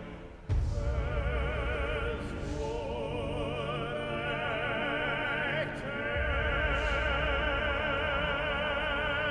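Soundtrack music: an operatic voice singing with wide vibrato over orchestral backing, coming in loudly about half a second in after quieter music.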